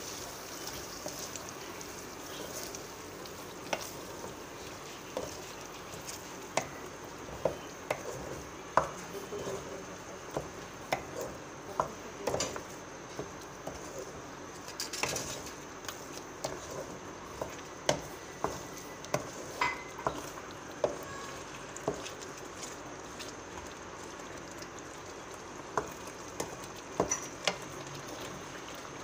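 A spatula stirs chicken curry and yogurt in a metal pot, knocking and scraping against the pot at irregular intervals, over a steady sizzle of the gravy cooking on the heat.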